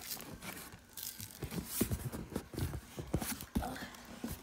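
Cardboard box flaps and the plastic wrapping inside being handled: irregular rustling and crinkling with scattered light knocks, busier after about a second and a half.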